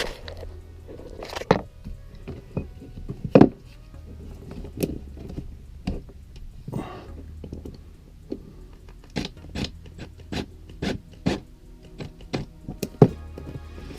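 Irregular knocks, clicks and light scrapes of tools and a plastic electrical box being worked into a wall opening, over a steady low hum.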